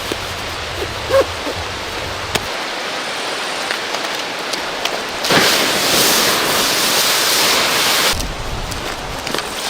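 River water flowing with a steady rushing hiss; the rushing grows louder for about three seconds past the middle, then drops back, with a few faint ticks.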